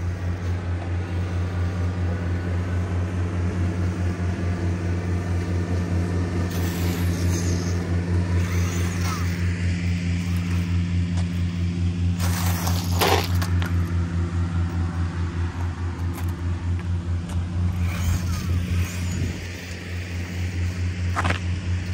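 A steady low hum with a fast pulse runs throughout. Over it, a 1/24-scale brushless RC truck's motor and tyres on asphalt come in short bursts, the loudest about 13 seconds in.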